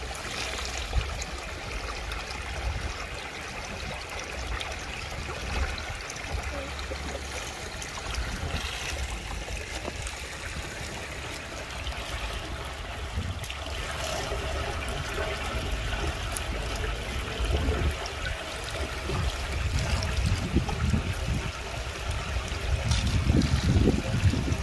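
Shallow, muddy rainwater running and trickling steadily down a concrete drainage channel, with a low rumble that grows louder in the last few seconds.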